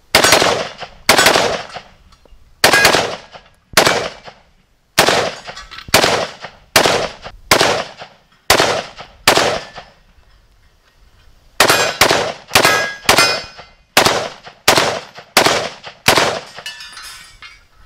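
PSA AK-104 7.62x39 rifle firing a long string of semi-automatic shots, one to two a second, with a pause of about two seconds midway. Hits ring on steel gong targets between the shots.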